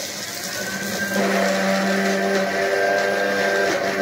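A small electric motor appliance running steadily with a loud whirring hum, getting louder about a second in.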